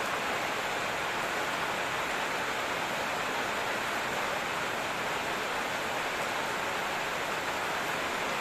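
Steady rain: an even, unbroken hiss with no single drops standing out.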